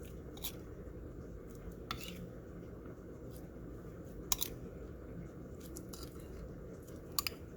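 A few sparse, sharp light clicks of kitchenware, a spoon against a bowl, over faint room hum; the loudest comes a little past the middle.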